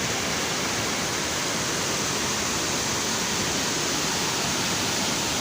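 Fast-flowing rainwater runoff in a swollen stream, rushing steadily with no breaks. The flow is fed by heavy rain and is filling a small dam.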